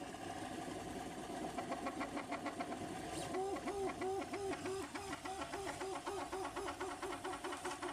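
Stepper motors of a homemade delta 3D printer whining as the print head moves, the pitch repeatedly sweeping up and down in a quick back-and-forth pattern, about four times a second from a few seconds in.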